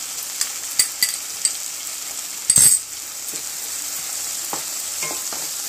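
Onion-tomato masala sizzling in a nonstick pan while ginger-garlic paste is stirred into it with a spatula, with scattered scrapes and clicks of the spatula on the pan. A short, loud clack about two and a half seconds in.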